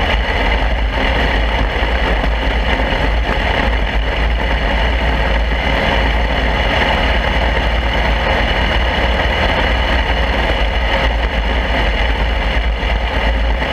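Mini wedge dirt race car's engine running steadily, heard from an onboard camera on the car, with a constant low rumble of wind and vibration on the microphone.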